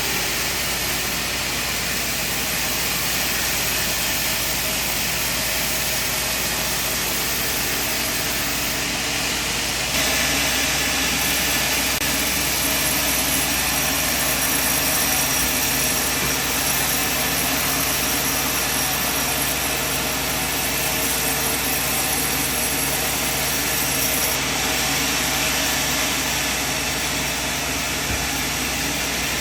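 Sawmill machinery running steadily, a continuous mechanical drone. The sound changes abruptly about ten seconds in and again shortly before the end, as if the scene cuts.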